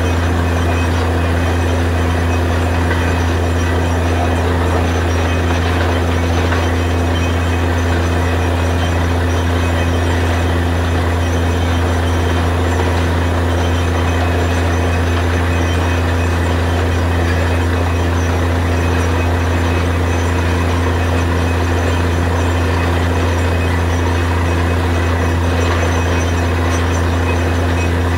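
Truck-mounted borewell drilling rig running steadily while drilling: a loud, unchanging machine noise with a strong low hum.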